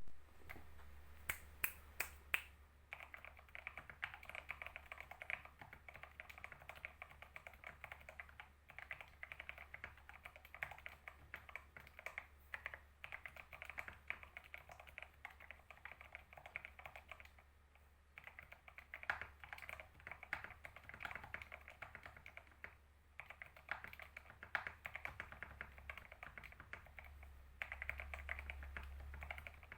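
Fast typing on a computer keyboard: a continuous stream of keystrokes with a few short pauses, and four sharper, louder clicks about two seconds in. A low steady hum runs underneath.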